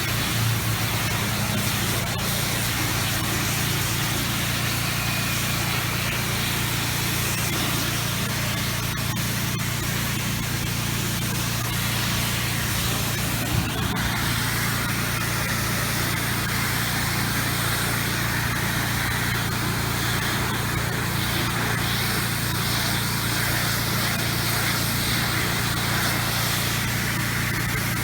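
Pressure washer engine running steadily under the continuous hiss of a high-volume, low-pressure fan-spray rinse of water on house siding.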